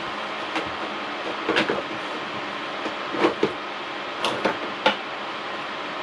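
A handful of light knocks and clacks of small objects being handled and set down on a workbench, some coming in quick pairs, over a steady hiss.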